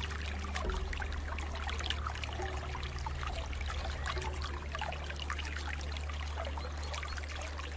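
Flowing water trickling and splashing steadily, over a low steady hum.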